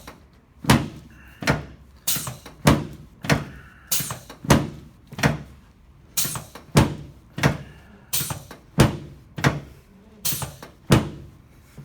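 Chiropractic adjusting thrusts on a treatment table: a rapid, regular series of about sixteen sharp thumps, roughly one every two-thirds of a second, given while correcting a short leg.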